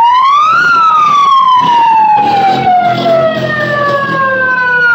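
A loud siren winds up for about half a second, then slowly winds down over the next four seconds. It sounds as the red flag goes up to halt the derby heat.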